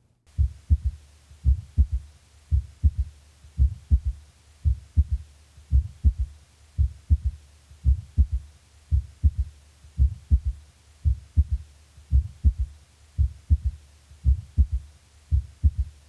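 Recorded heart sounds as heard through a stethoscope, with a third heart sound (S3): low, dull beats in a repeating gallop, one cycle about every second. The S3 is a low-pitched sound following the second heart sound. A steady low hum runs underneath.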